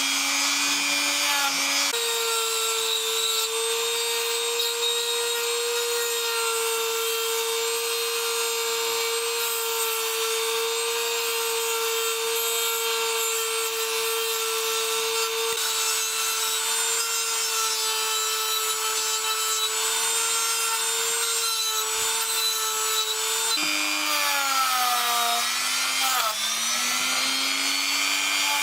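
Small high-speed rotary tool running with a steady whine. Its pitch steps up about two seconds in, then sags and wavers near the end as the tool is loaded against the work.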